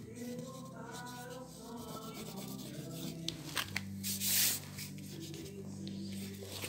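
A hand rubbing across a painting on paper, smudging its drawn lines: a few short scratchy touches a little past three seconds in, then one loud swipe about four seconds in.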